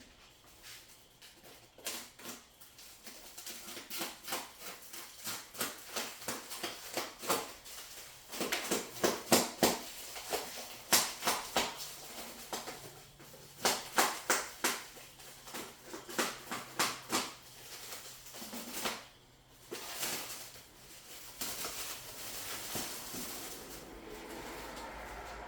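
Packaging being handled and opened: irregular crackles, clicks and rustles, in quick runs between short pauses.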